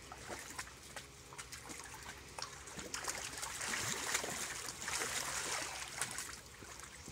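Water splashing and sloshing in a shallow inflatable kiddie pool as a child kicks and a small dog wades, louder for a few seconds in the middle.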